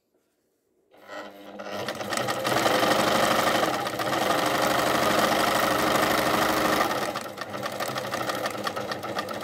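Pfaff 209 sewing machine on a test run, starting about a second in and building to a fast, even stitching rhythm through fabric, then running somewhat slower and quieter near the end.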